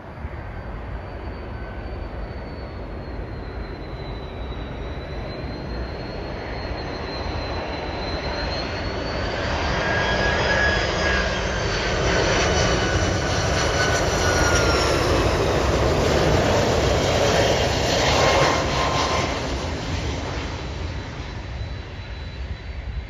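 Airbus A330-200 jetliner on final approach, its jet engines' noise swelling as it comes close, with whining tones that slide down in pitch. Loudest from about ten to nineteen seconds in, then easing as the plane lands and rolls along the runway.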